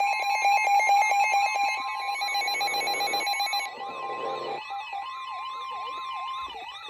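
Electronic alarm and siren tones: a steady, rapidly pulsing alarm tone with a second steady tone, then a siren wailing up and down about twice a second, which carries on alone near the end.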